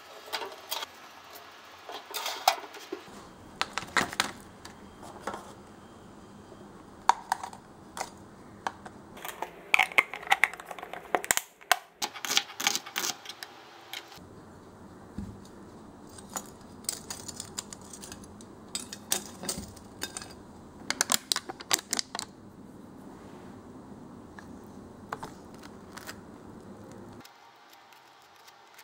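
A run of small kitchen clicks, taps and clatters: metal tongs against a wire oven rack, then a knife and utensils on a cutting board, then a bagel handled on a plate.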